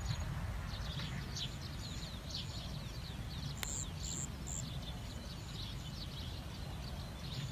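Many small birds chirping in short, quick falling notes over a steady low rumble, with a few short, very high pips about halfway through.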